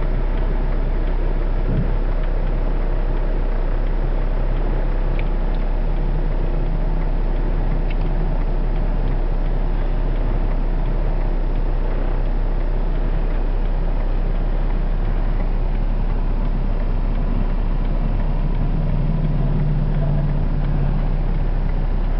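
Steady rumble of a car idling, heard inside its cabin, with a low hum swelling for a few seconds near the end.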